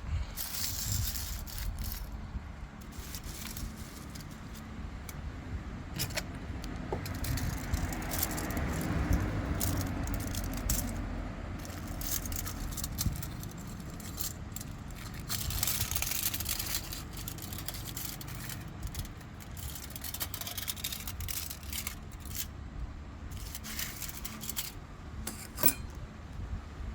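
Irregular clicking, rattling and scraping of hand work on a cell phone battery being taken apart, with louder stretches of scraping about a third of the way in and again past the middle.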